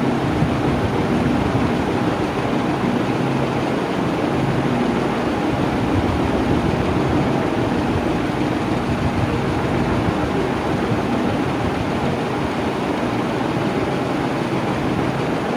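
Electric fan running steadily at constant speed: an even rush of air over a low motor hum, with no change in speed.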